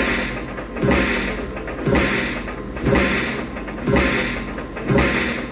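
Dragon Train poker machine playing its win-celebration sound while the win meter counts up: a repeating effect that pulses about once a second, each beat opening with a thump.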